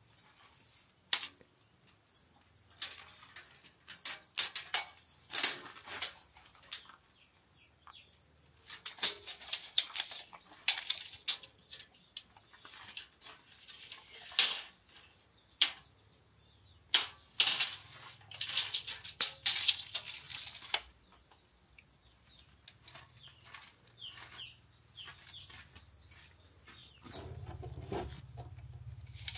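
Steel tape measure being pulled out, laid along a metal frame and let snap back, giving a string of sharp clicks, rattles and short whirring bursts at irregular intervals.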